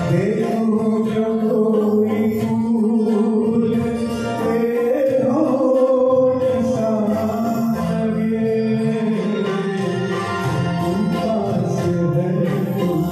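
A man singing a ghazal into a microphone, holding long notes that bend slowly in pitch.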